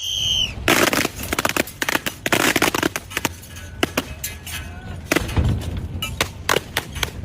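Dense crackling and popping for about two seconds, then scattered sharp clicks and snaps.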